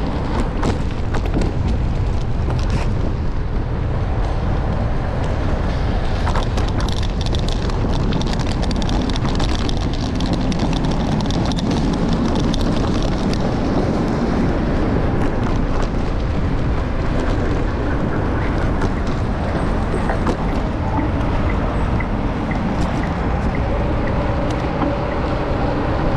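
Wind buffeting the microphone of a camera on a moving bicycle: a steady low noise with street and tyre sound under it and scattered small ticks.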